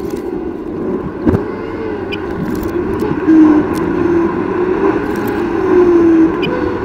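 A car driving, heard from inside the cabin: steady engine drone and road noise with a wavering hum, and one sharp click a little over a second in.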